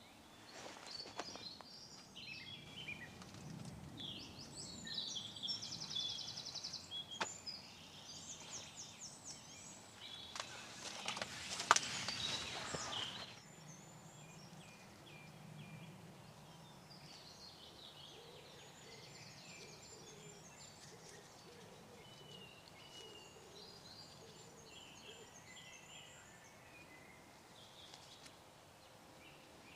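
Several songbirds singing in woodland, with repeated trills and whistled phrases. For about the first thirteen seconds a rustling noise with a few sharp knocks sits under the song, then stops suddenly, leaving the birdsong over quiet background.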